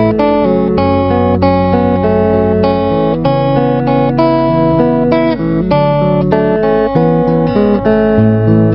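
Acoustic guitar playing a steady run of strummed and picked chords, with no voice.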